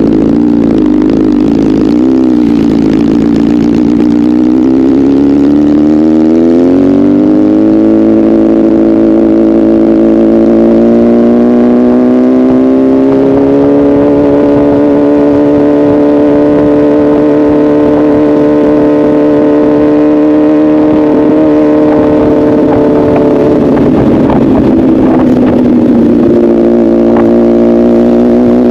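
Honda CBR1000RR inline-four engine through an aftermarket SC exhaust, running loud at high revs. The pitch wavers at first, climbs steadily, and holds high for about ten seconds. It dips briefly about 24 seconds in, then rises again.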